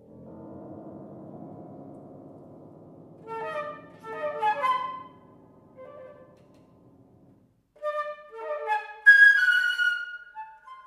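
Concert flute playing short phrases and then fast, high runs of notes. Under the first part is a low held piano sound that fades out about seven seconds in.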